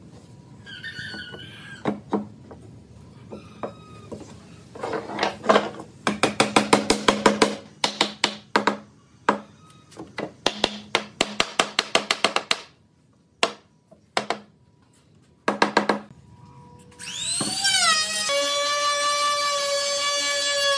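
Claw hammer knocking on a wooden table frame, in quick runs of several blows a second, as the joints are tapped home. About 17 seconds in, an electric trim router starts up, its motor whine rising quickly and then holding a steady high pitch.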